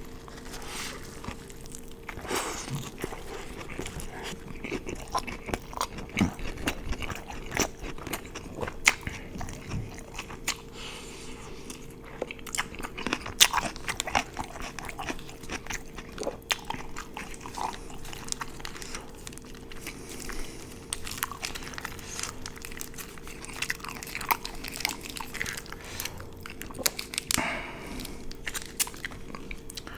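Close-miked chewing and biting of food, with irregular crunches and wet mouth clicks. A faint steady hum runs underneath.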